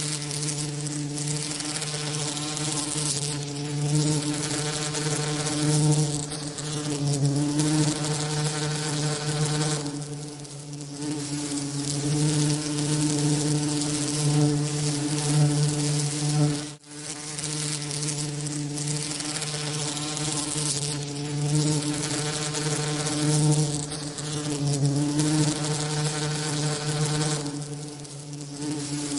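Bee wings buzzing: a continuous low buzz with a steady pitch and a hiss of noise layered over it, swelling and easing slowly, used as a tinnitus masking sound. It drops out for an instant about two-thirds of the way through.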